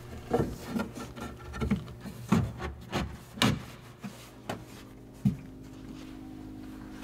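Plywood cabinet being pushed and shifted into place by hand: a quick run of wooden knocks and scraping rubs for about three and a half seconds, then two single knocks.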